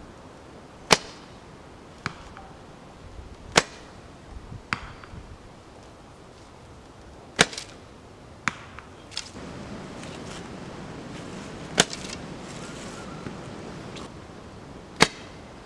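Osage orange recurve selfbow being shot five times. Each release is a sharp string snap, and after the first three a fainter knock of the arrow striking comes about a second later.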